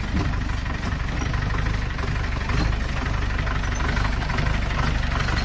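Off-road jeep's engine running at low speed, a steady, pulsing low rumble mixed with the noise of the vehicle working over a rough forest track.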